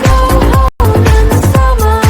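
Electronic dance music with a steady beat and held notes, with no singing; it cuts out for an instant about a third of the way in.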